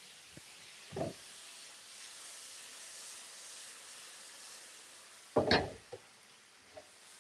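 Garlic, onion and soy sauce sizzling in a frying pan, a faint steady hiss. A utensil knocks against the pan about a second in and clatters louder about five and a half seconds in.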